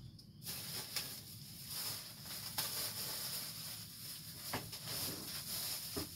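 Plastic packing wrap rustling and crinkling as a wrapped part is handled and pulled out of a cardboard box, starting about half a second in, with a few sharp clicks along the way.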